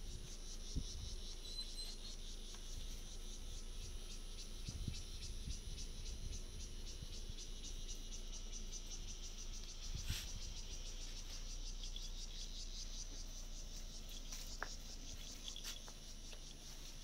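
A steady, high-pitched chorus of insects, crickets or similar, shrilling in the garden vegetation. A few soft thumps come through underneath, and there is one short click about ten seconds in.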